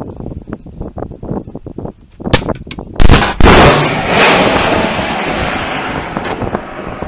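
Javelin anti-tank missile fired from the shoulder: a loud launch bang, a second blast about half a second later as the missile's flight motor lights, then a long rushing rocket noise that slowly fades as it flies off.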